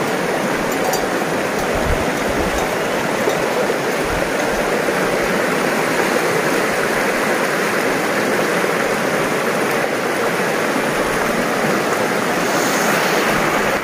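Shallow, stony mountain river rushing steadily over rocks, a constant even wash of water noise.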